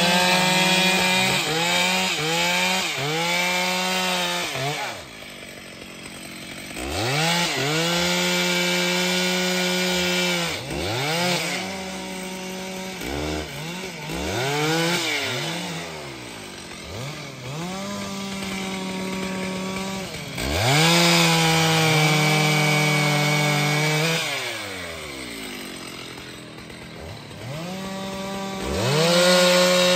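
Stihl MS 881 chainsaw, a large two-stroke, cutting through a felled tree trunk: the engine revs up to full throttle, holds there for a few seconds in the cut, then drops back toward idle, over and over.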